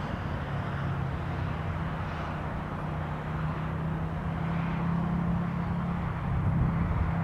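A steady engine-like hum holding one pitch, over strong wind rumbling and buffeting on the microphone.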